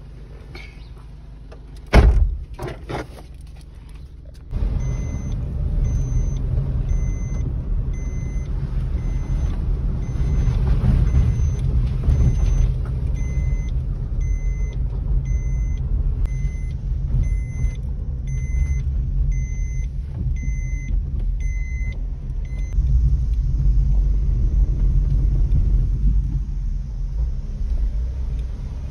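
Inside a moving car: a steady low rumble of engine and tyres that steps up sharply a few seconds in, after a single sharp knock. Over the rumble a thin electronic warning beep repeats about once a second for most of the stretch, then stops.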